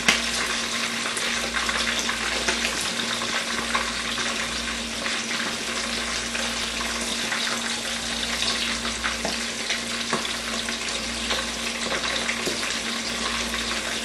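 Pieces of red snapper shallow-frying in hot oil in a wok: a steady sizzle with many small crackles and pops as the fish is fried to golden brown.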